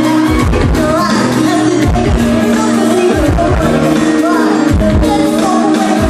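Live pop music played loud through a concert sound system: a woman singing into a microphone over a dance beat with a heavy bass drum.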